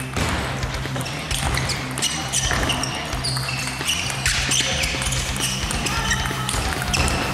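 Table tennis rally: a celluloid-type ball clicking off the bats and the table many times in quick exchange, with short high squeaks in between.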